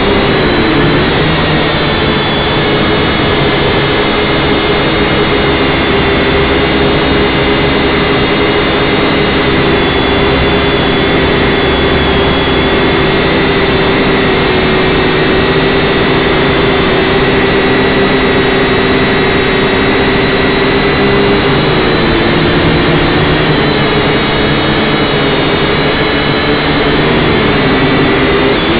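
Syma X5C quadcopter's small brushed motors and propellers whining steadily in flight. The pitch wavers briefly about a second in and again near the end as the motors change speed.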